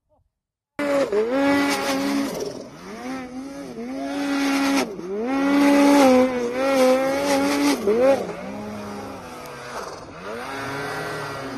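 Snowmobile engine revving hard while climbing through deep powder. The pitch dips and climbs again several times as the throttle is worked. It starts abruptly about a second in.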